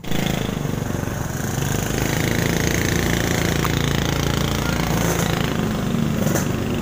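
A small engine running loudly and steadily at an even speed, a low drone with no change in pitch.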